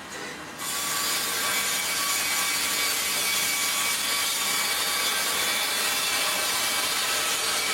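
MEBOR HTZ 1200 Plus horizontal bandsaw cutting through a log, a steady, dense saw hiss with faint whining tones that starts suddenly about half a second in.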